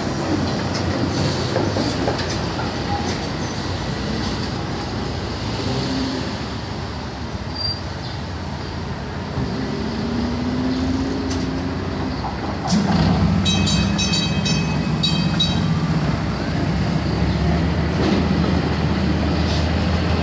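TTC CLRV streetcar rolling through the intersection, its steel wheels rumbling and clattering on the rails. About two-thirds of the way in the noise suddenly gets louder, with a few seconds of rapid high metallic clicking.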